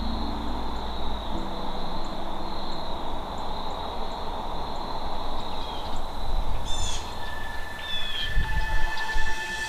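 Outdoor ambience: a steady hiss with a thin high whine, and a few short bird chirps about seven seconds in. Sustained music tones come in near the end.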